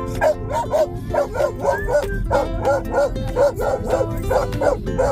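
Dog barking rapidly and repeatedly, about three to four barks a second, over background music.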